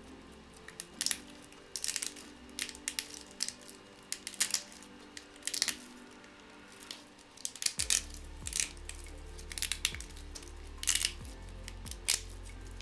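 Thin cured-resin supports snapping and crackling as gloved hands break them off a resin 3D print: irregular sharp cracks and crunches, many in quick clusters.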